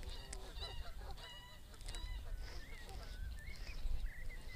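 Birds calling: a run of short, repeated pitched calls in the first second, then wavering whistled notes later, over a low wind rumble on the microphone.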